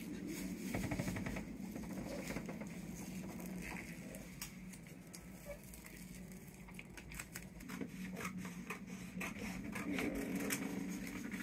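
Rustling, crinkling and small irregular clicks of vinyl lettering and transfer paper being handled, over a faint steady low hum.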